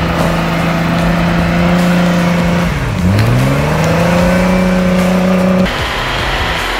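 Jeep Wrangler's engine held at high revs as its tyres spin through deep snow; the revs drop sharply about three seconds in and climb straight back up, and the engine note breaks off abruptly near the end.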